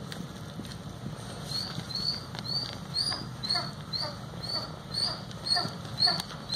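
Short, high cries repeating about twice a second, each one falling in pitch, from an animal close by.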